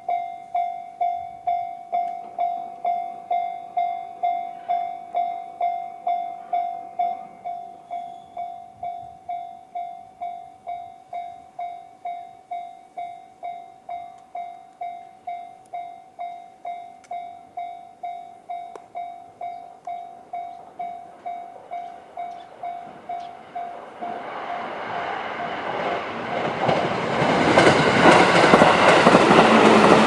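Japanese railway level-crossing alarm sounding the JR standard electronic bell tone, about two strokes a second. About two-thirds of the way through, a JR 211-series electric train approaches and passes; its running noise and wheel clatter swell until they drown out the bell.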